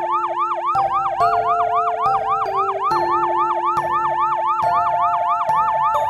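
Fire truck siren in a fast yelp, its pitch sweeping up and down about four times a second, over background children's music with sustained notes.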